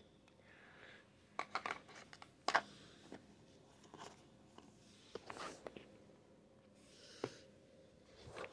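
Faint handling of a small cardboard jewelry box and its lid: scattered taps, scrapes and rustles, the sharpest about two and a half seconds in, with another cluster about five seconds in.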